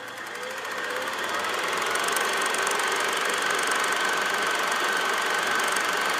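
Film projector running: a steady whir with a rapid clatter, growing louder over the first couple of seconds as it comes up to speed.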